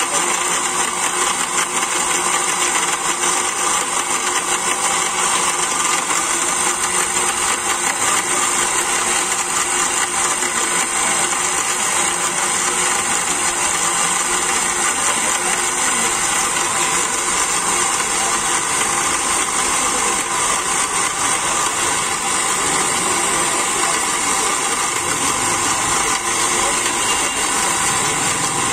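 Nova countertop electric blender running steadily, whipping a cold coffee mixture into froth in its jar.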